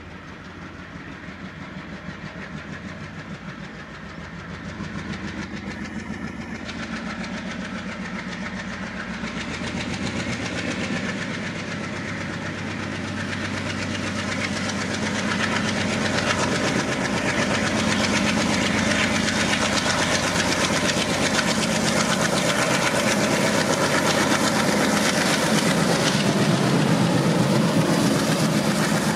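Twin ALCO WDM3A diesel locomotives working hard under power, their 16-cylinder ALCO engines chugging with a deep, steady beat over the rumble and clatter of wheels on rail. The sound grows steadily louder for about the first half as the locomotives close in, then stays loud as they pass close by.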